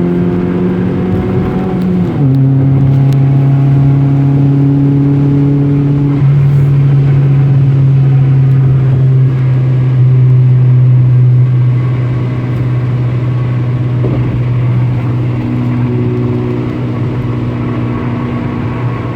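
Car engine heard from inside the cabin while driving on a highway: it climbs in pitch as it accelerates, drops in pitch about two seconds in as it shifts up a gear, then settles into a steady drone at cruising speed.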